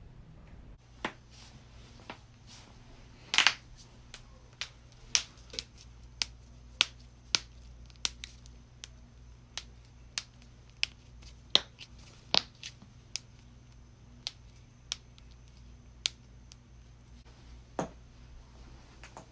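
Joints cracking: a long series of sharp, separate pops at uneven intervals, about one or two a second, a few much louder than the rest, over a steady low hum.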